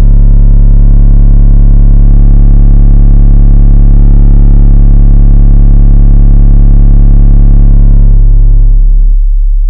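A 35 Hz test tone played very loud through a cheap GRS 12SW-4 12-inch subwoofer in a fourth-order bandpass box, inside a car cabin. It is a deep steady tone with a thick layer of overtones above it, and the subwoofer is struggling at about 124 dB SPL and 25 watts. Near the end the overtones drop away and it gets a little quieter as the volume is turned down.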